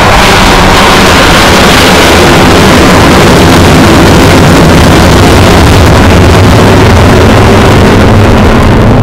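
Avro Vulcan XH558 bomber's four Olympus jet engines running very loud and steady as the aircraft flies past.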